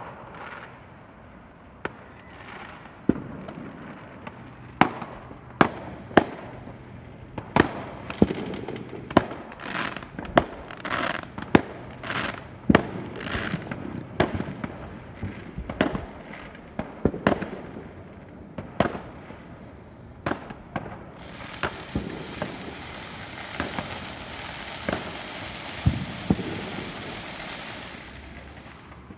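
Fireworks going off: many sharp bangs in irregular volleys, each with an echoing tail, coming thickest in the middle. Over the last quarter a steady hiss joins them and stops suddenly near the end.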